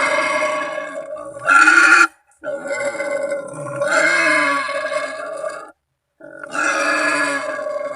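Wild boar calling: a run of long, drawn-out calls, each lasting one to three seconds, broken by two short silent gaps about two and six seconds in. The loudest is a short call just before the two-second mark.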